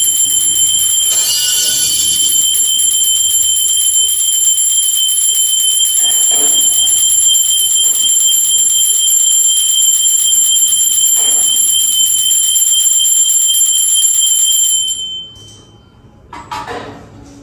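Puja bell ringing continuously and rapidly during aarti, as one unbroken high metallic ringing that stops abruptly about fifteen seconds in. It is followed by a soft clink near the end.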